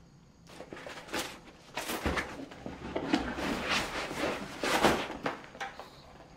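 Objects being handled: irregular rustling and scraping with light knocks and clicks, coming in bursts and dying down near the end.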